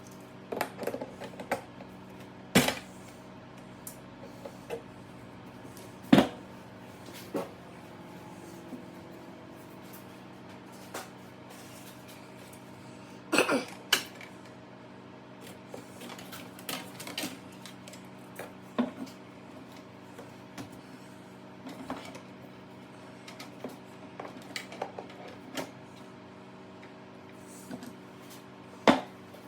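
Irregular metallic clinks and knocks of tools and parts as a Chinese diesel heater is taken apart, over a steady hum. The sharpest knocks come about two seconds in, about six seconds in, and twice near the middle.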